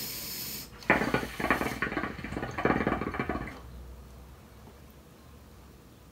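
A brief high hiss, then hookah water bubbling in rapid gurgles for about two and a half seconds as smoke is drawn through the hose, fading out near the middle.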